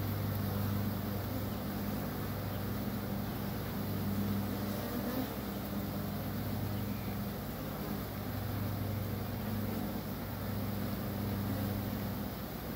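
Honeybee swarm buzzing in a steady low drone around the cluster on the hive front, swelling and easing slightly.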